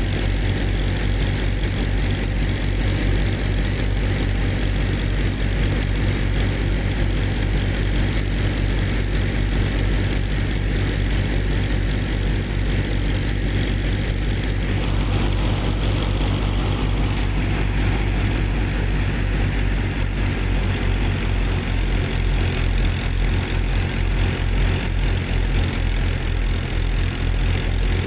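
Small motor driving a miniature model wheat thresher, running steadily with a fast, even low hum. The sound gets slightly brighter about halfway through.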